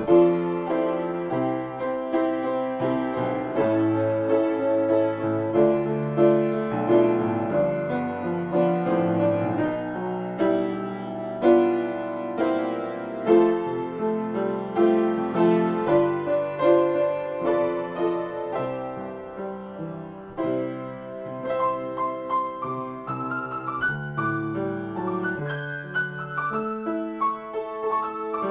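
Upright piano played solo, an improvisation of chords and melody with the notes left to ring. It grows quieter about twenty seconds in, then a melody climbs higher near the end.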